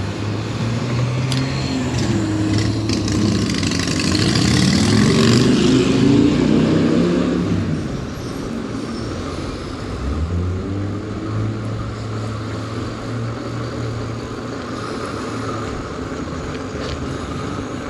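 Road traffic heard while riding an e-bike along a road: a motor vehicle goes by, loudest about four to seven seconds in, with its pitch rising. Under it runs a steady hum of running and road noise.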